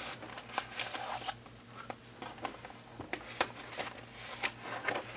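Rustling and light clicks of paper cards and plastic being handled by hand, as album inclusions such as postcards and photocards are sorted through, in irregular short bursts.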